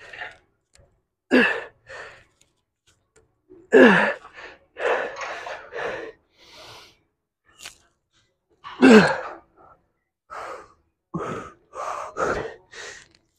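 A man grunting and gasping with exertion while straining through a set of weightlifting: strained groans that fall in pitch, loudest about four and nine seconds in, between quick hard breaths.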